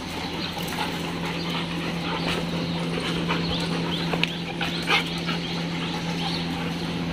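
A group of dogs moving about on a tiled floor, giving short high yips and whines among scattered clicks, with a louder sound about five seconds in, over a steady low hum.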